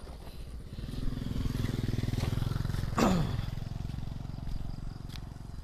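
A motorcycle engine passing: it grows louder from about a second in and fades away after about three seconds. A short cry falling steeply in pitch comes at its loudest point.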